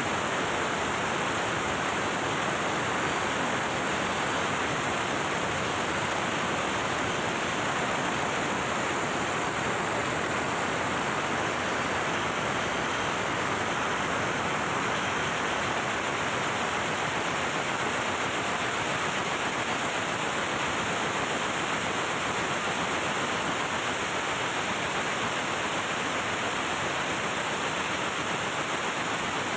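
MAN B&W auxiliary diesel generator engine running, heard as a steady, even machinery noise with no distinct beat.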